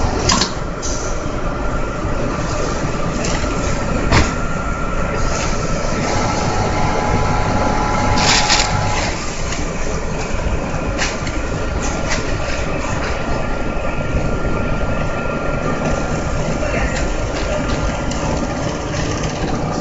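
GK35-6A bag sewing machine and its bag conveyor running, a loud steady machine noise with a few sharp clacks and a faint whine for a few seconds midway.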